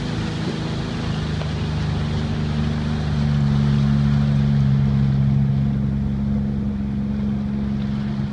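Jet ski engine running steadily at low speed, its note stepping up and getting a little louder about three seconds in.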